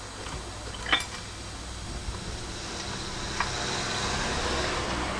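Light metallic clinks of steel bolts and an engine-stand mounting bracket being handled and fitted by hand against the engine case, with a sharp clink about a second in and a smaller one later.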